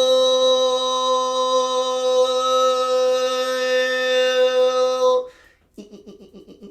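A single sustained musical tone held at one steady pitch, rich in overtones, that cuts off abruptly about five seconds in. A much fainter fluttering sound follows near the end.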